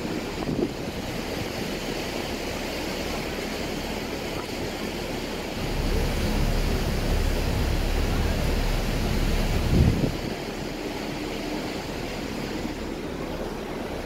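Steady rush of wind and water past a moving ferry on its open deck, with wind buffeting the microphone; the low rumble grows heavier from about six to ten seconds in, with a brief thump near the end of that stretch.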